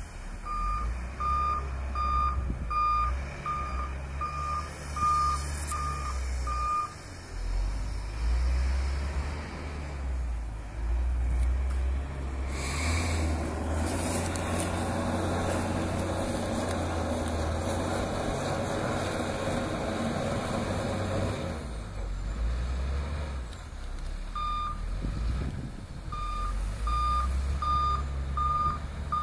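Volvo L220F wheel loader: its reversing alarm beeps steadily, a little under two beeps a second, over the diesel engine. About twelve seconds in there is a short sharp hiss, then the engine revs up for about eight seconds, with the bucket carrying a heavy load of about 13 tonnes. The reversing alarm starts beeping again near the end.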